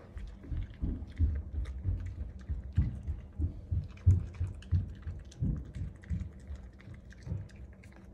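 A puppy chewing and mouthing small pieces of pepper: irregular muffled thuds with light clicks, a few a second, tailing off near the end.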